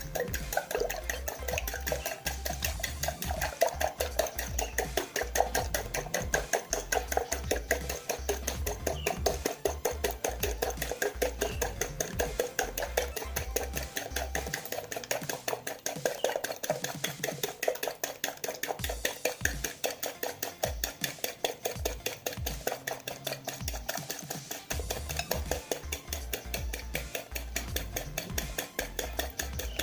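Two hen's eggs being beaten by hand in a bowl: a utensil striking and stirring against the bowl in quick, steady strokes.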